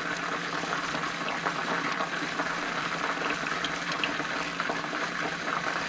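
Chicken wings deep-frying in a pot of oil: a steady bubbling sizzle with scattered faint crackles.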